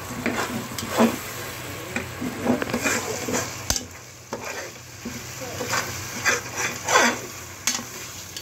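Spatula stirring and scraping browned onions, ginger-garlic paste and curd frying in oil and ghee in an aluminium pressure-cooker pot, with a steady sizzle under irregular scraping strokes. One sharp knock comes a little before halfway.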